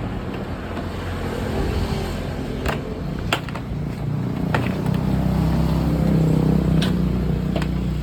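A motor vehicle engine running steadily nearby, growing louder in the second half, with several sharp clicks and taps over it.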